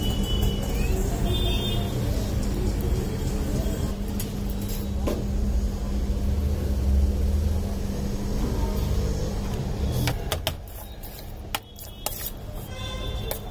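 Street traffic rumble with a steady low hum. It drops in level about ten seconds in, where a few sharp clicks stand out.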